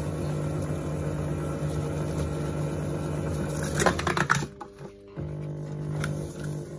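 Motor of an electric line-winding machine running steadily, spinning a reel spool as fly line is wound onto it. About four seconds in there is a quick run of clicks. The hum then stops for under a second and starts again.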